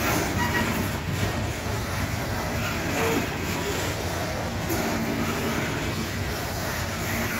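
Loaded coal hopper cars of a freight train rolling past, their steel wheels running steadily on the rails.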